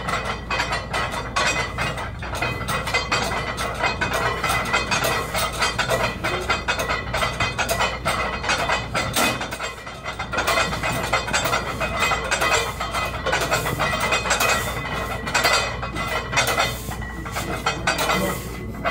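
Metal weight plates and barbells clanking and clinking in a busy weight room, a dense, irregular run of knocks and clinks, with a faint steady high tone underneath.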